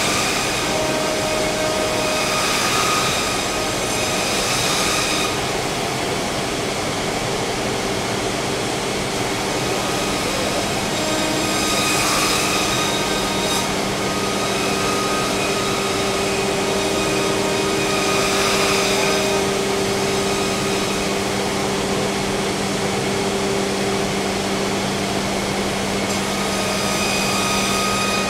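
Freedom Machine Tool Patriot CNC router running: a steady hum, with whines that shift in pitch several times as the spindle and gantry move, and a few louder swells of hiss.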